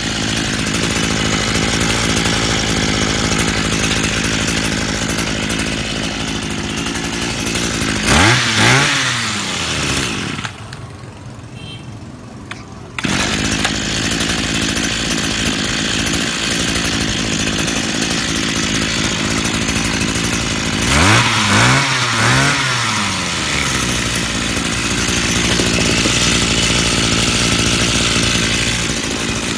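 Hitachi handheld brush cutter's small petrol engine running smoothly on test. It is revved up and back down about eight seconds in and again around twenty-one seconds, with a quieter spell shortly after the first rev.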